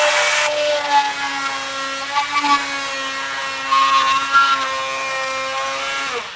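Oscillating multi-tool running with a steady whine while its blade rasps into a wooden board, cutting a half-lap notch; the blade is not fresh. The loud rasp of cutting falls away about half a second in, comes back in short bursts, and the motor dips briefly at the very end.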